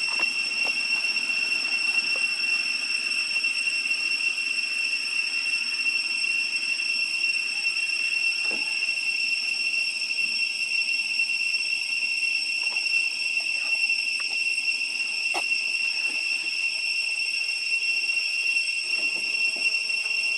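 Steady, high-pitched insect drone of cicadas, holding one unchanging pitch throughout, with a few faint knocks.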